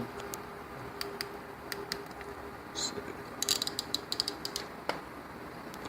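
Hexagon crimp tool clicking as it crimps the center contact onto a triax cable's center conductor: scattered sharp clicks, with a quick run of clicks about three and a half seconds in.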